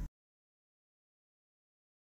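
Dead silence: the soundtrack cuts off abruptly right at the start.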